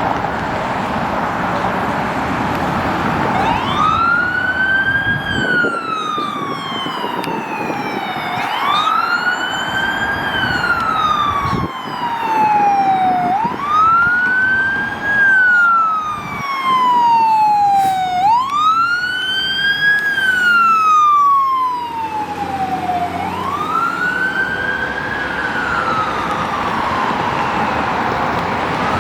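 Fire truck siren on wail, on a 2019 Pierce Enforcer aerial ladder truck. It comes in about three seconds in over road noise, and each cycle rises quickly in pitch, then falls slowly, repeating about every five seconds.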